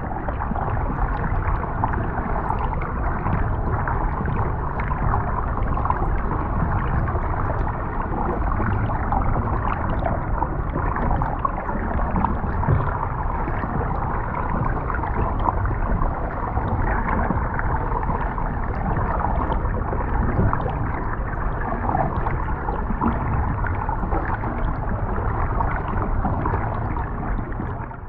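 Underwater recording of a muddy water current: a steady rush of water with a low rumble and gurgling, dull, with no high hiss.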